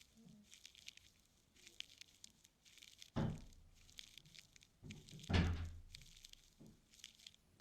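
Ear-cleaning tools scraping and rustling in the ear close to the microphone, in short scratchy strokes, with two louder dull thumps about three and five and a half seconds in.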